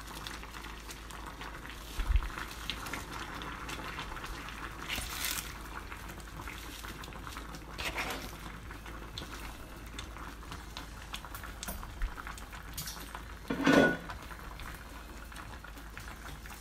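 Sinigang broth simmering in a saucepan with a steady soft bubbling, and a few light knocks of handling as spinach is added to the pot. A short hum-like sound comes near the end.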